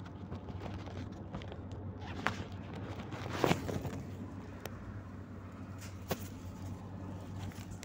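Steady low drone of a Volgabus-5270.GH city bus's engine heard from inside the cabin, with several sharp knocks and rustles of the camera being handled, the loudest about three and a half seconds in.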